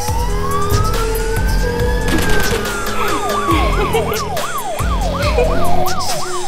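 Background electronic music with a siren-like wail: one slow rising and falling sweep, then a fast up-and-down warble of about three sweeps a second from about three seconds in, over a steady beat.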